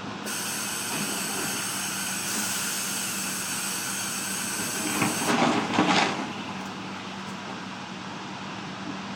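Heavy machinery running steadily, with a loud hiss that starts at once and cuts off about five seconds in. As the hiss ends, a brief loud rattling clatter follows.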